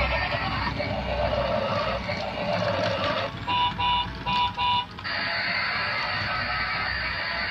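Battery-operated transforming robot train toy playing its tinny electronic music and sound effects through a small built-in speaker while it changes from robot to locomotive. Four short beeps come about halfway through, followed by a steady electronic tone pattern.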